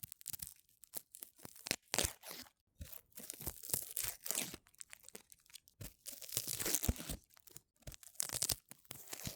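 Irregular crinkling, crackling and tearing noises from something being handled, in quick, uneven bursts.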